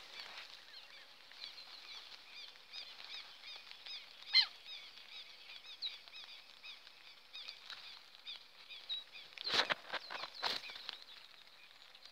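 Leaves and stems rustling and snapping close to the microphone as someone creeps through dense brush: a sharp snap about four seconds in and a louder burst of rustling around nine and a half to ten and a half seconds. Faint, high chirps repeat several times a second behind it throughout.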